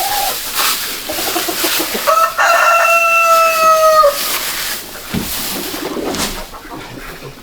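A rooster crowing once: a held call of about two seconds that dips in pitch at the end, over a steady hiss.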